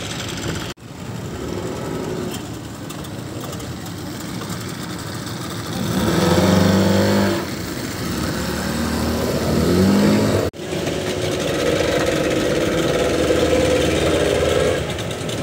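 Speedboat outboard motors running at low speed as the boats manoeuvre. The revs rise loudly about six seconds in and climb again near ten seconds, then settle to a steady drone. The sound cuts out briefly twice.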